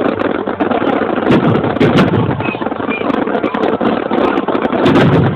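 Large aerial fireworks bursting in quick succession: a dense, continuous rumble of booms with many sharp cracks through it, loudest around two seconds in and again near the end.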